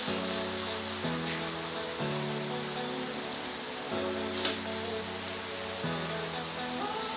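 Batter-coated pappadam deep-frying in hot oil in an aluminium kadai: a steady sizzle, with background music chords underneath.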